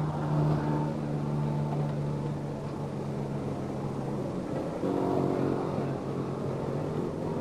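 Motor vehicle engine running with a steady low hum. A second, higher hum joins about five seconds in.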